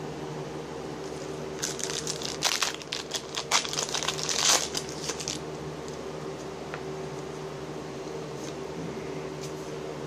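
A 2015 Allen & Ginter trading-card pack's plastic wrapper crinkling as it is torn open, for about three and a half seconds starting near two seconds in, over a steady low hum.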